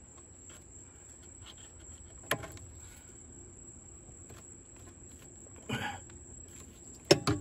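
Plastic wiring-harness connectors being pushed into a car amplifier's sockets: a sharp click about two seconds in, a brief rustle of handled wires near six seconds, and a loud double click near the end, the click that tells the plug is seated properly.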